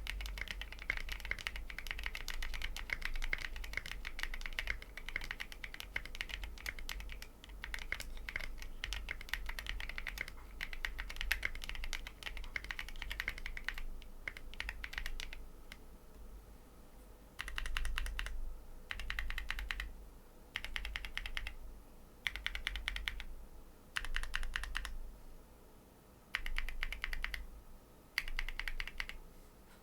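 Typing on a mechanical keyboard with lubed Tecsee Coral tactile switches in an FR4-plate Bakeneko 60, fitted with SA-profile double-shot ABS keycaps. Steady fast typing runs for about fifteen seconds, then breaks into short bursts of keystrokes with brief pauses between them.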